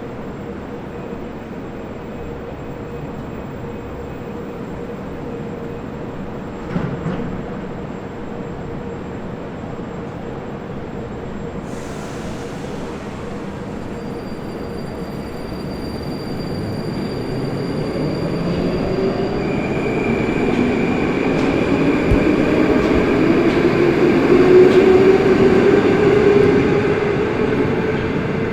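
Moscow Metro train heard from inside the car: steady rumble at first, a brief hiss about twelve seconds in, then the traction motors' whine rising in pitch and growing louder as the train accelerates, easing off near the end.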